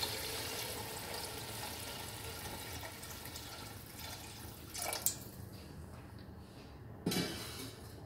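Water being poured into a metal pot of fried dal and masala, a steady splashing pour that fades after about four seconds, then two brief knocks as the pot is stirred.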